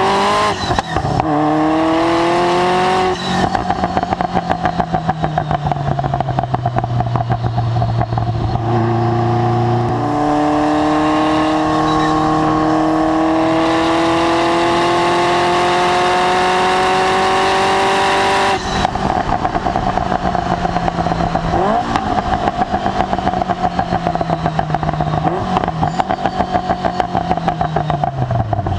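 Ferrari F40's twin-turbo V8 through a Tubi Style exhaust, pulling hard with its pitch climbing through the revs, once at the start and again for about eight seconds in the middle. About two-thirds of the way in it comes off the throttle into a rougher, rapidly pulsing note, with short dips and recoveries in pitch near the end.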